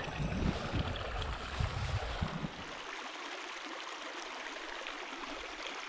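Small creek trickling and gurgling steadily. Low bumps in the first couple of seconds, then only the steady water sound.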